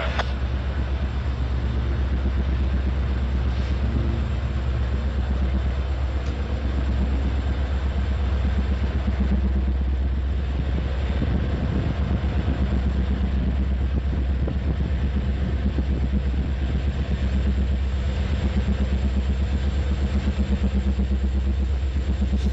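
Norfolk Southern diesel-electric freight locomotive running as it approaches, a steady low engine drone with a fine pulsing throb.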